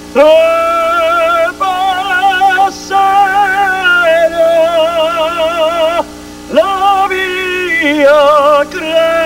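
A man singing an Italian song in an operatic style, holding long notes with a wide vibrato and breaking off briefly about six seconds in before going on.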